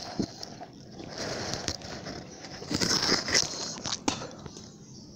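Rustling and crackling of grapevine leaves and twigs brushing close to the microphone, with a few sharp clicks, loudest about three seconds in.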